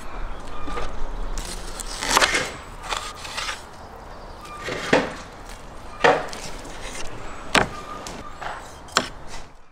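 Large kitchen knife chopping raw lamb into pieces on a wooden cutting board: a handful of sharp knocks of the blade hitting the board, irregularly spaced a second or more apart.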